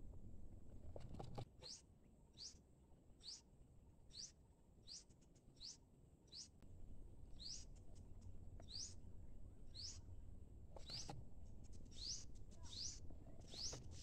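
Young quail peeping: short, high, rising chirps repeated about every three-quarters of a second, faint, over a low background rumble.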